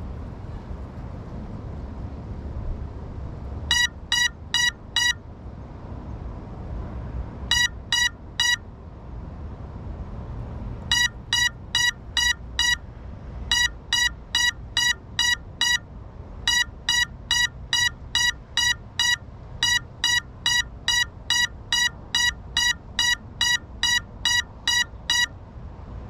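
A downed FPV quad's alarm beeping: short, shrill beeps, first in a group of four and then a group of three, then a steady run of about two a second from about eleven seconds in. This is the lost-model alarm of a crashed drone, under a low rumble.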